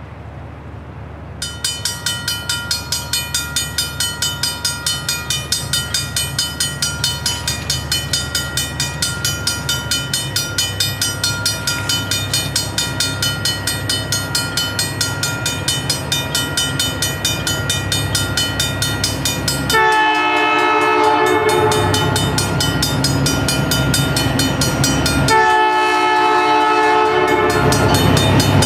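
Grade-crossing warning bell starts about a second and a half in and rings on steadily and rapidly, over the slowly growing rumble of approaching Essex Terminal Railway diesel locomotives. The lead locomotive's horn sounds twice near the end: a blast of about a second and a half, then a longer one of about three seconds.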